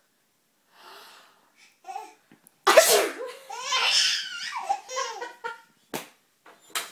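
One sharp sneeze about two and a half seconds in, followed at once by a baby's giggling laughter for a few seconds.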